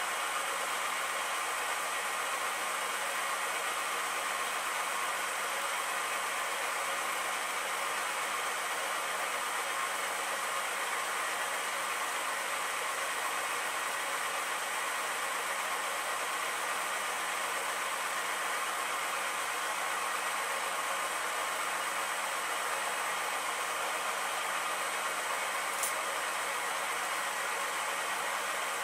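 Bridgeport milling machine running steadily with its spindle turning: an even mechanical hum and whir with a hiss. A single short click near the end.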